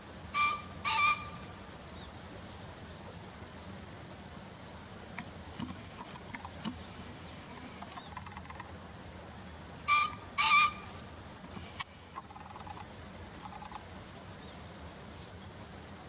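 Male green pheasant crowing: a harsh two-note "kyeen-kyeen" call, given twice, once near the start and again about ten seconds later.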